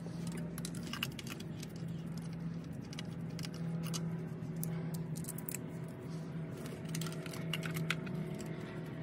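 Light, irregular metallic clicks and clinks of a spark plug socket and extension as new spark plugs are threaded into the cylinder head of a BMW N20 2.0-litre turbo four-cylinder, over a steady low hum.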